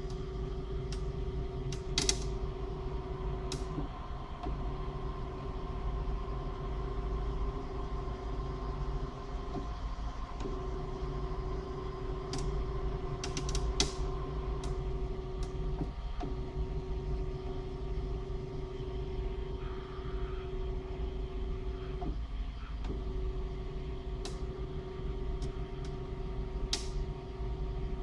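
Wanhao Duplicator 4 3D printer running, its motors giving a steady tone that breaks off briefly every five to six seconds. Sharp clicks come now and then, about seven in all, a few of them close together; the cause of the clicking is unknown to the owner.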